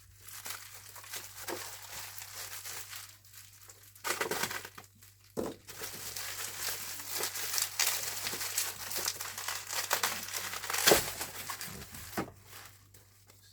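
Packaging crinkling and rustling as a parcel is unwrapped by hand, with irregular crackles and a few sharper snaps; the loudest snap comes about eleven seconds in.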